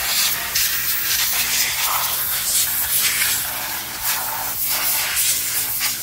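Compressed-air blow gun on a compressor hose blasting dust out of an iMac's cooling fans and internals: a loud hiss of air that swells and fades unevenly as the nozzle moves.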